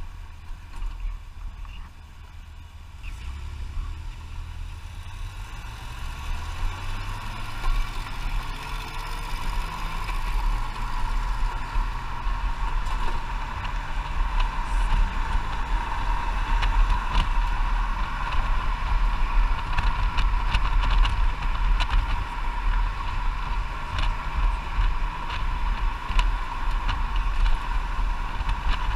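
Motorcycle engine, quiet at first, then rising in pitch in a few steps as the bike pulls away and accelerates. It settles into steady engine, wind and road noise at speed.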